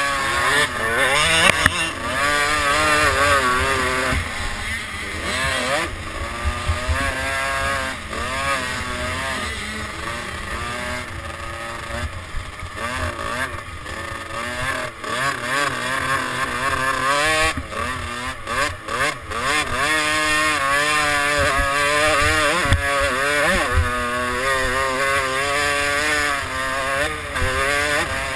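Motocross bike engine heard close up from the bike, revving up and falling back again and again as the rider works the throttle and gears round the track, with a few sharp knocks from the rough ground.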